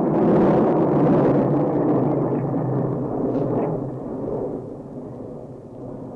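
Aircraft engine roar passing over and fading away as the plane flies off.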